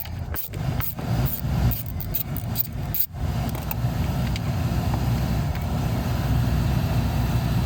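Ford Focus cabin heater blower fan running with a steady whir, breaking off a few times in the first three seconds and then running on steadily. It cuts in and out with a faulty ground connection in the car's wiring.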